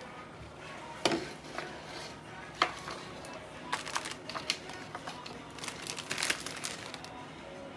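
Plastic packaging crinkling and crackling in short, irregular bursts as it is handled, over quiet background music.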